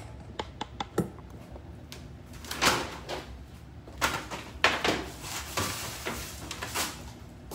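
Handling noises: a few light clicks and knocks at the start, then several brief scraping and rustling sounds of things being moved about.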